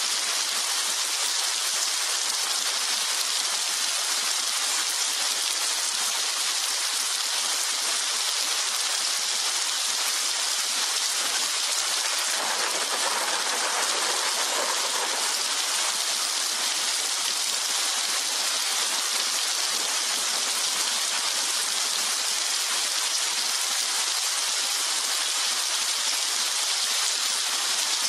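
Steady heavy rain falling, an even hiss that swells a little around the middle.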